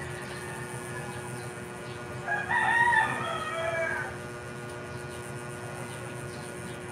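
A rooster crows once, about two seconds in, for just under two seconds, over a steady faint background hum.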